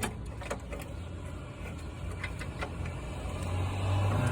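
Metal hand tools and sockets clinking in a few scattered sharp clicks, over a steady low hum that grows louder toward the end.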